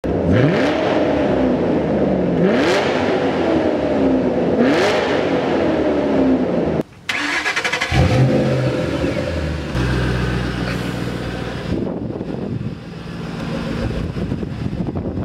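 2008 Shelby GT500KR's supercharged 5.4-litre V8 accelerating hard through the gears, its pitch climbing and then dropping at each of two upshifts. After a short break the engine starts up at about 8 seconds and settles into a steady idle.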